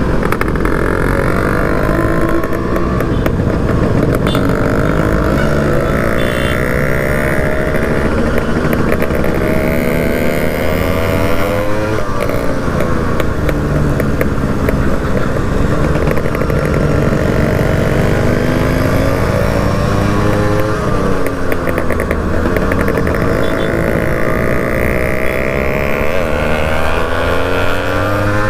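Yamaha RX two-stroke single-cylinder motorcycle engine running under way. Its pitch rises and falls with the throttle and drops sharply twice, near the middle and again about three quarters through, before climbing again as the bike pulls through the gears.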